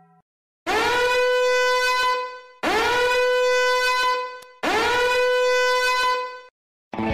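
A horn-like blast sound effect played three times in a row, about two seconds apart: each swoops up quickly to one steady pitch, holds for about a second and a half, then fades. Music starts just at the end.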